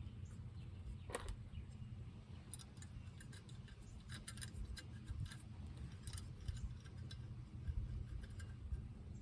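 Small metal clicks and clinks at irregular intervals, over a low steady rumble: washers and nuts being handled and threaded by hand onto wedge anchor studs.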